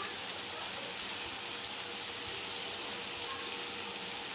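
Chopped onion, capsicum and tomato masala sizzling steadily in hot oil in a nonstick frying pan.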